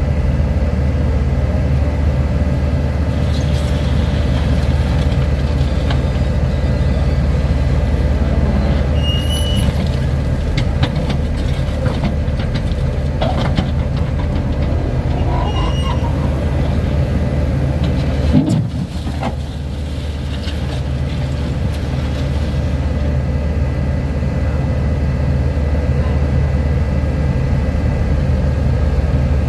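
A heavy vehicle engine running steadily with a deep, even drone. About two-thirds of the way through there is a short sharp knock, the sound drops for a moment, then builds back up.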